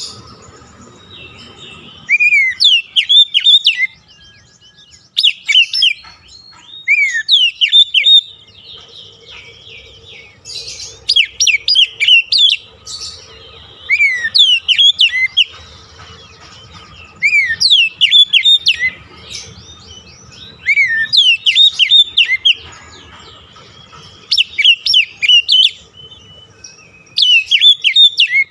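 Oriental magpie-robin (kacer) singing: bursts of quick, sharp whistled notes sliding up and down, a new phrase about every two to three seconds with short pauses between.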